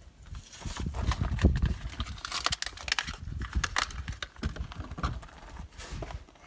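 Irregular clicks, knocks and rustling of hands handling parts and tools in a cramped water heater compartment.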